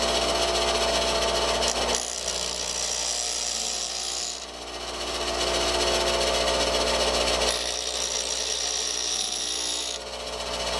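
Bench grinder running steadily while the point of a twist drill is ground on the wheel, in two passes of hissing grinding about five seconds apart.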